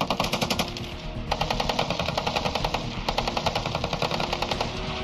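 M240 belt-fed machine gun (7.62 mm) firing fully automatic: a burst that ends just after half a second in, then after a short pause a long burst of over three seconds, with rapid evenly spaced shots.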